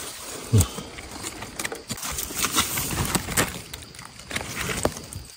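Knife scraping and prying in gritty soil and leaf litter as a mushroom is dug out of an earth bank, with irregular small clicks and rustles and a brief low thud about half a second in.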